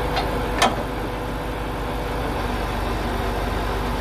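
Heavy lorry's diesel engine idling steadily. Two short knocks come in the first second, the second one louder.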